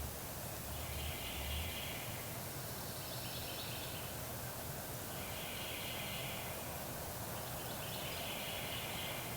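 Wild turkey gobbler gobbling four times, each gobble about a second long and about two seconds apart, over steady wind noise.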